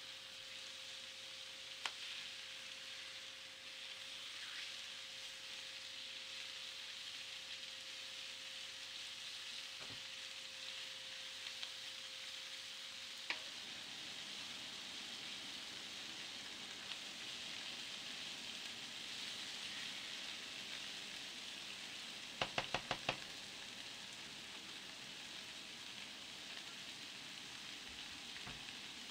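Steady sizzling hiss, with a low steady hum through the first half that stops suddenly, and a quick run of about six clicks some two-thirds of the way in.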